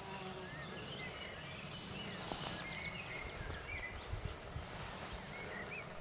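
Quiet outdoor ambience: faint, scattered small-bird chirps and short calls over a low, steady background rumble.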